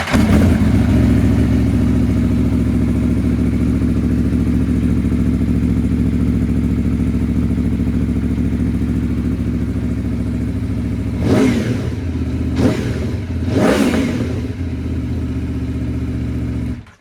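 2018 Aprilia Tuono V4 1100 Factory's V4 engine, breathing through an Akrapovič carbon fibre exhaust, fires up and idles steadily. It is blipped three quick times about two-thirds of the way through, then switched off and cuts out suddenly near the end.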